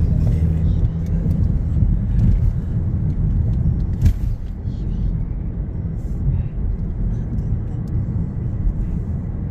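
Steady low rumble of engine and tyre noise inside a moving car's cabin, with a single sharp click about four seconds in.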